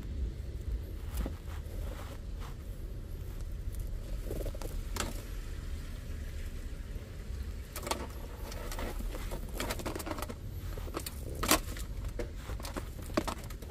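Wiring harnesses and plastic plug connectors being handled and sorted, with scattered rustles and clicks, the sharpest near the end, over a steady low hum.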